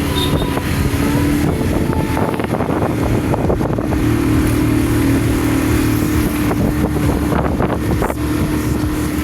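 Vehicle engine running steadily, with wind noise on the microphone.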